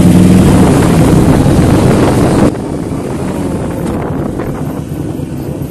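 Motorcycle engine running while riding, with wind rushing over the microphone. The sound drops sharply a little under halfway through, to quieter engine and wind noise.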